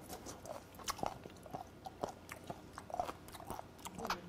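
A man chewing a piece of skate nose (hongeo-ko), the cartilage making short, irregular crunching clicks, picked up close by a lapel microphone.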